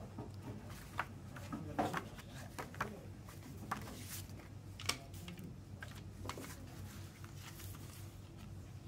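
Paper and plastic being handled: the pages of a CD lyric booklet turned and a photo card moved onto a plastic CD case. Soft rustles with scattered sharp ticks, the sharpest about two and five seconds in.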